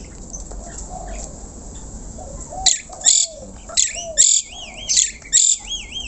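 Asian pied starling (jalak suren) calling: after a fairly quiet couple of seconds, a run of loud harsh screeches mixed with wavering whistles, about two a second.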